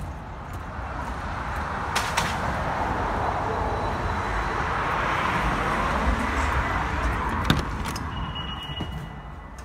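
A car passing on the street, its tyre and engine noise swelling over several seconds and then fading. A few sharp knocks come through it, and near the end there is a brief high squeak as the front door is opened.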